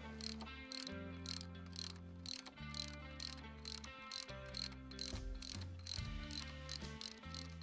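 Faint background music with a steady beat: held bass notes that change every second or so, under quick, evenly spaced ticks.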